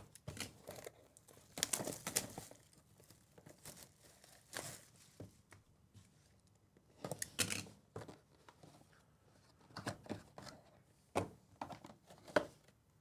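A sealed 2024 Press Pass Premium Football hobby box being unwrapped and opened by hand: plastic wrap crinkling and tearing and the cardboard box being handled, in short bursts a few seconds apart.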